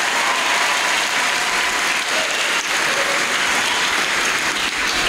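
A congregation applauding: many hands clapping together in a steady, even patter.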